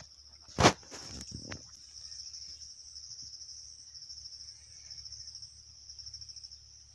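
Insects buzzing in a steady, high-pitched, rapidly pulsing trill. A sharp knock about half a second in is the loudest sound, followed by brief rustling.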